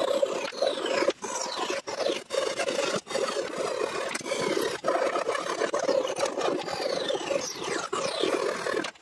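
A knife blade slicing and scraping along the edge of a wooden box, trimming off protruding thin wood strips in repeated strokes with brief breaks between them. The cutting is scratchy, with high squeaks that slide down in pitch.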